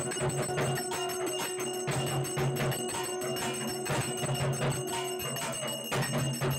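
Brass puja hand bell rung rapidly and continuously during arati, its strikes running into a sustained ringing, with music underneath.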